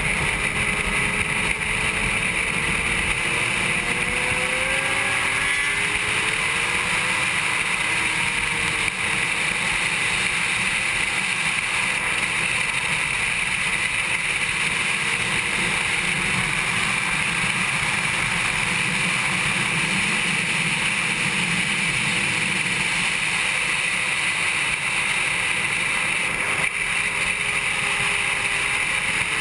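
A 2007 Honda CBR600RR's inline-four engine running at racing speed, heard onboard under heavy wind rush on the camera. The engine note rises during the first several seconds as the bike accelerates out of a corner.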